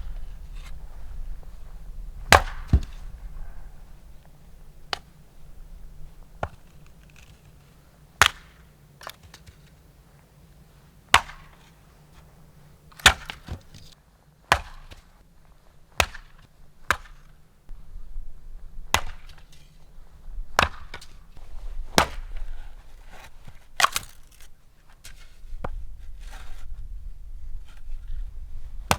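Firewood being split: sharp wooden cracks, one every one to three seconds at an uneven pace, over a low steady rumble.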